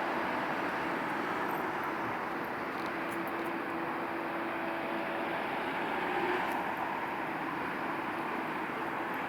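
Steady traffic noise of cars driving by, a mix of engine hum and tyre noise at an even level.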